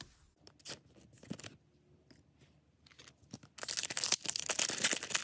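A few soft clicks of trading cards being handled and set down, then, about three and a half seconds in, a Disney Lorcana booster pack's foil wrapper being torn open with loud, dense crinkling.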